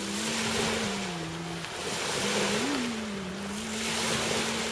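Small waves washing in on the lakeshore in surges a second or two apart, with wind. A faint low droning tone runs underneath and shifts pitch a few times.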